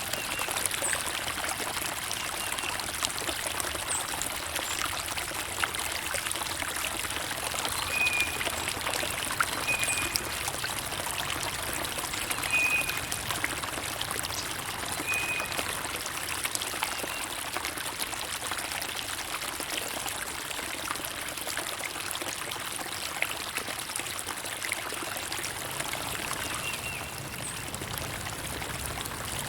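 A small stream trickling and splashing steadily, with a bird giving a few short, high chirps now and then.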